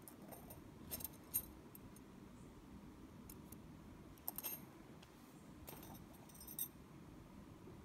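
Thin micro gold-plated metal bangles clinking against each other as they are handled: a few light, scattered clinks, the sharpest about a second and a half in.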